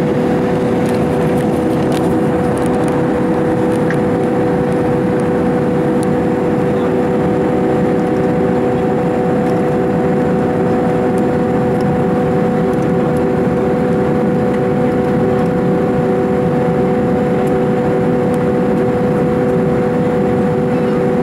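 Airbus A310 cabin noise on approach: a steady rush of airflow with the steady hum of the turbofan engines, heard inside the cabin beside the wing.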